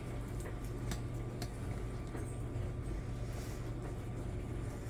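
Metal tongs working a chuck roast down into broth in a ceramic slow-cooker crock: soft squishing and a few light clicks about half a second to a second and a half in, over a low steady hum.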